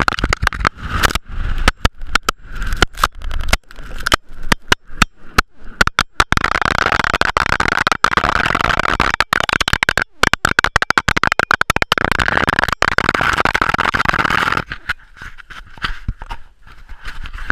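Bobsleigh runners rushing down an ice track at speed: a loud, continuous rushing hiss chopped by rapid knocks and dropouts as the violently shaking camera mount rattles. Near the end the noise drops away sharply as the sled slows.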